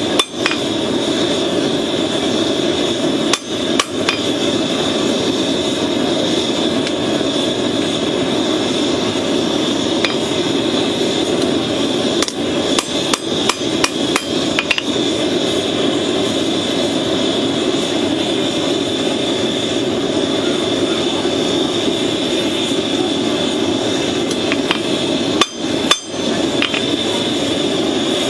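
A forge running with a steady roar, with a few sharp metal knocks scattered through it: a cluster in the middle and two close together near the end.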